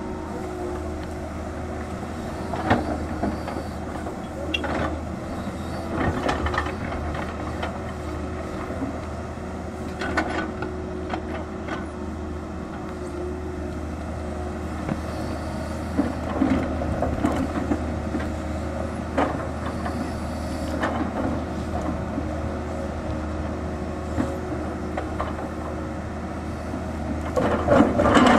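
Tata Hitachi 220 excavator's diesel engine running steadily as it digs, with irregular knocks and clatter of the bucket biting into rocky soil and moving earth, loudest near the end.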